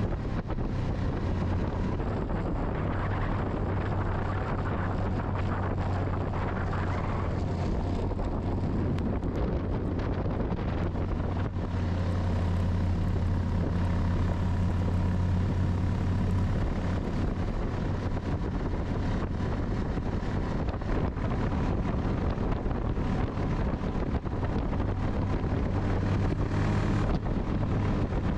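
Snowmobile engine running steadily under way, a low drone heard from the rider's seat, with wind noise on the microphone.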